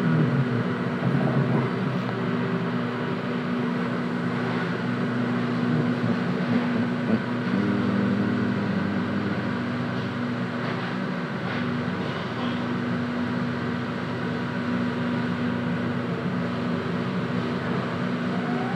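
Inside a GTT Hitachi Rail tram: a steady electrical hum from the onboard equipment while the tram stands still. Near the end the traction motors' whine starts to rise as the tram pulls away.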